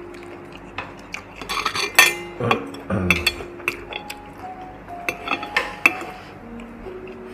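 Metal chopsticks clicking and scraping against a grill plate and dishes: a string of sharp clinks, busiest about two seconds in and again around five to six seconds, with a duller knock near three seconds. Soft background music with held notes runs underneath.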